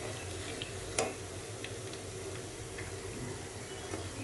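Urad dal and rice batter spirals deep-frying in oil with a faint steady sizzle, broken by scattered small ticks and one sharper click about a second in from the steel spatula turning them in the pan.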